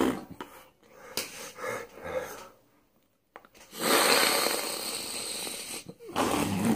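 A man making wordless noises with his mouth and breath: short breathy sounds, a second of silence about halfway, then a long hissing blow of breath lasting about two seconds, and a voiced noise near the end.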